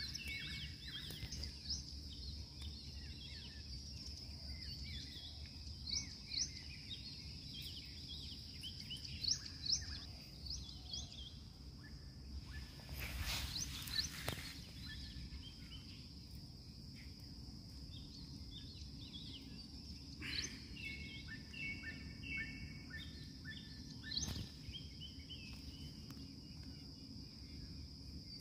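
Outdoor ambience: small birds chirping on and off over a steady, high insect drone. A brief rustle comes about 13 seconds in.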